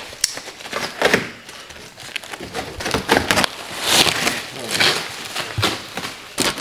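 Plastic wrapping and cardboard packaging being handled and pulled open: crinkling and rustling with scattered knocks and taps, the rustling loudest about four to five seconds in.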